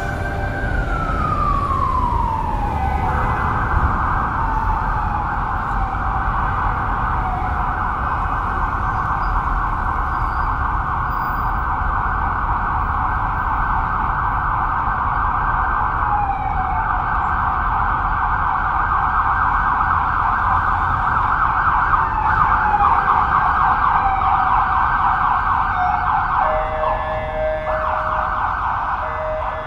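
Emergency vehicle siren over a low city rumble. It opens with a falling wail, then runs a fast warbling yelp for most of the time, and switches to a steadier, lower tone near the end.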